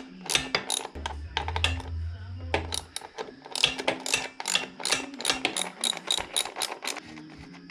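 Ratchet wrench clicking in quick runs while bolts are worked loose to take the seat and fuel tank off a small dirt bike. A low hum sounds briefly about a second in.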